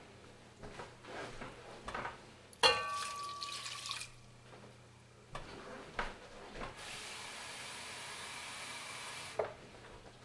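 Kitchen tap running to fill a measuring cup with water: a short first run with a whistling tone about two and a half seconds in, then, after a few clicks and knocks, a steady stream for about two and a half seconds that stops sharply.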